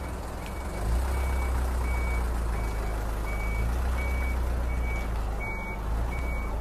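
A vehicle's reversing alarm beeping steadily, a little more than once a second, over a steady rushing noise and a low rumble that swells about a second in and eases near the end.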